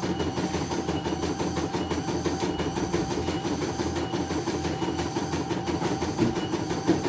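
CNY E900 computerized embroidery machine stitching a design, its needle running in a fast, steady, even rhythm while the hoop carriage shifts the fabric. Two louder clacks come near the end.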